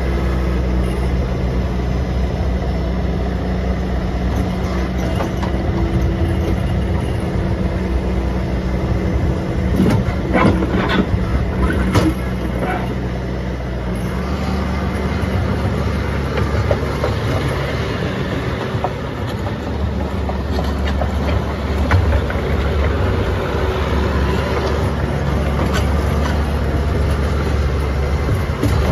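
Bobcat T450 skid steer's 49 hp Doosan diesel engine running steadily, with a few metallic knocks about ten to twelve seconds in and a shift in the engine note at about fourteen seconds.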